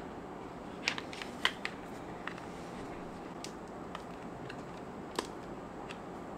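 Small sharp clicks and taps of a clear plastic phone case being handled and pressed onto a vivo X100 Pro smartphone. A quick cluster of clicks comes about a second in, then single clicks here and there, over a steady low hiss.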